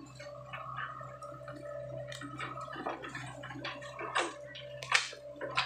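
Sany SY55C mini excavator's diesel engine running steadily under a steady hydraulic whine while its bucket churns and scoops wet mud and water, gurgling and sloshing with many short knocks and splashes, the sharpest about five seconds in.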